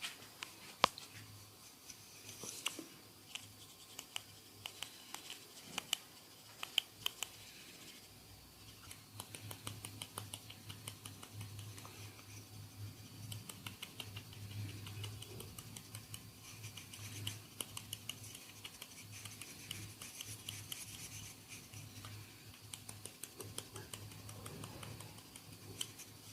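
Hands massaging a head close to the microphone: fingers scratching and rubbing through hair and over the scalp in quick, crackly strokes. A few sharp clicks stand out in the first seven seconds.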